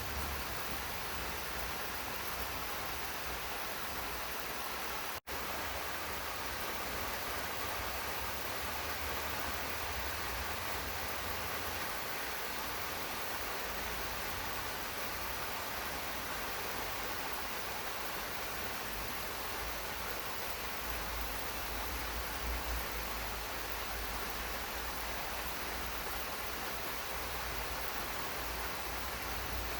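Steady rain falling, an even hiss with a low rumble beneath it. It cuts out for an instant about five seconds in.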